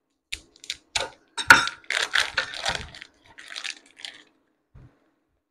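Plastic sausage packaging being cut open with a knife and pulled apart, crinkling and crackling. A few sharp clicks come first, and the loudest crackle is about a second and a half in.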